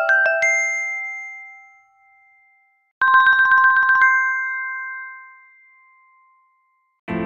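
Samsung Galaxy phone notification tones. The last quick bell-like chime notes of one tone ring out and fade. About three seconds in, a second tone plays a rapid trill on two pitches for about a second, ending on a held chime that fades away.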